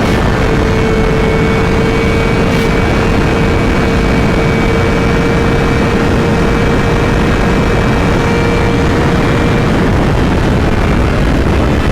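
Kawasaki 636 sport bike's inline-four engine holding steady revs at speed, with heavy wind rush over the microphone.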